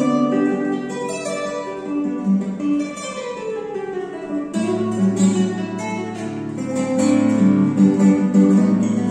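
All-solid Giannini NWT1 nylon-string classical guitar with gonçalo alves tonewood, fingerpicked: a flowing melody over sustained bass notes, with a falling run of notes a few seconds in and a new low bass note entering about halfway through.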